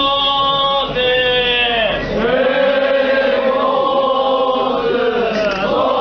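Buddhist monks' voices chanting long, drawn-out calls in unison, several in a row with the pitch falling at the end of each. These are the work calls as they haul together on the ropes that swing the log striker of Chion-in's Dai-Shoro bell.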